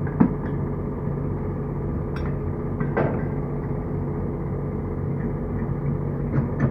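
A steady, even machine hum runs underneath. Over it come a few short knocks and clicks, the clearest about a quarter second in and about three seconds in, as the metal floodlight housing and tools are handled.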